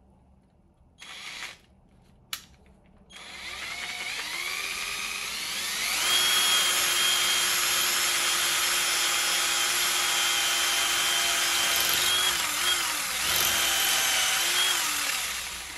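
Power drill with a 5 mm concrete bit boring into a brick wall. After a short blip about a second in, the motor spins up over a few seconds to a steady whine, wavers briefly, and winds down near the end.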